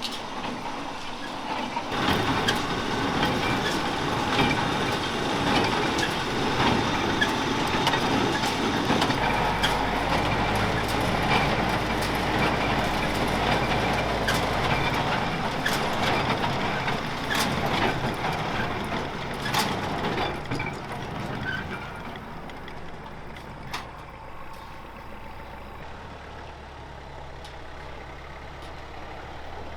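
Kubota tractor and International small square baler running in the hay field: a steady engine with sharp, uneven clacks from the baler, growing quieter about three quarters of the way through.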